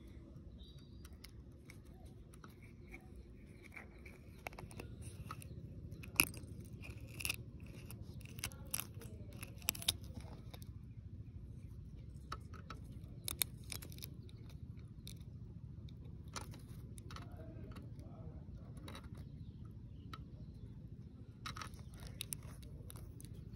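Chicken eggshell being cracked and peeled away by fingers: scattered sharp crackles and clicks, busiest in the middle and again near the end, over a steady low rumble.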